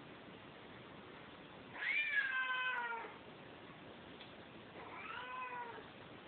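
Domestic cat meowing twice, each meow about a second long and slightly falling in pitch, the first louder and a little longer.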